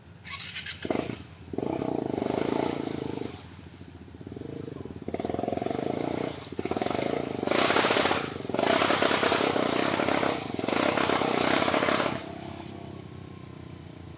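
Quad bike (ATV) engine revved hard in about six surges of a second or two each, dropping back to idle between, while its wheels spin and throw mud: the quad is stuck in a mud pit. The revving falls away near the end.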